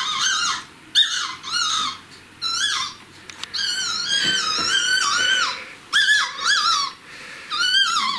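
Newborn Pomeranian puppy squeaking while suckling, played back through a phone speaker: groups of high, wavering squeaks about once a second, one run drawn out longer near the middle.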